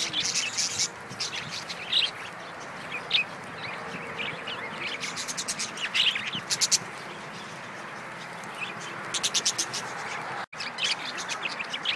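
Budgerigars chirping and chattering close by, in many short calls with quick runs of rapid ticks.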